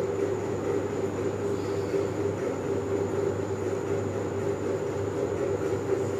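Steady mechanical hum with a faint high-pitched whine above it.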